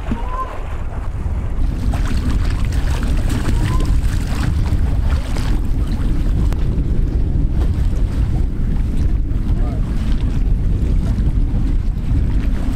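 Strong wind buffeting the microphone, a steady low rumble over choppy water washing against the pier pilings.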